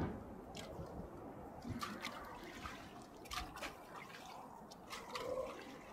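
Small waves lapping against a concrete embankment: quick, irregular wet splashes and drips, with soft clicks among them.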